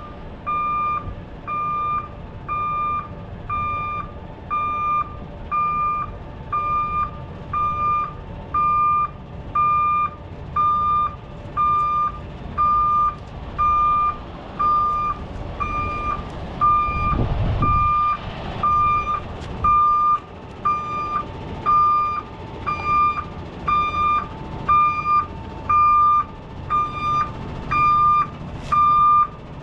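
Vehicle reversing alarm beeping steadily, about one beep a second, over a low engine rumble. A brief low rumble swells about seventeen seconds in.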